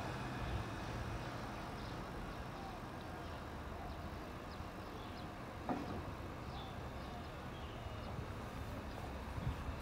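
Low, steady hum of an idling engine, with a single click a little past halfway and a few faint high chirps.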